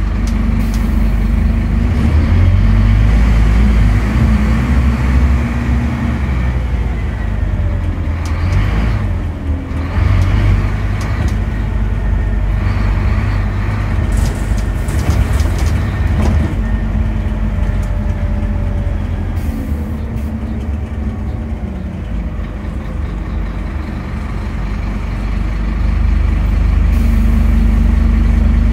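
Scania N270UD Omnidekka double-decker bus heard from the upper deck on the move: a steady low engine drone, louder at the start and again near the end as the engine works harder, easing in the middle. Faint rising whines and a few short noise bursts come through in the middle stretch.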